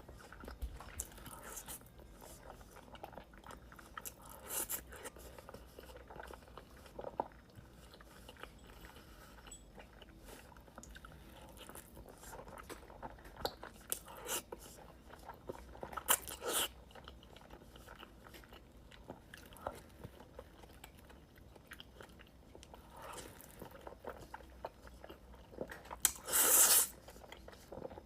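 Close-up eating sounds of spicy instant noodles: chewing and biting, with scattered small wet clicks and short bursts. A louder noisy burst of about a second comes near the end.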